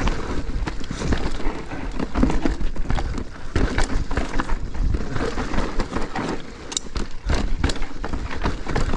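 Mountain bike riding fast down a rough trail: a continuous, irregular clatter of knocks and rattles as it runs over rocks and roots, over a steady low rumble.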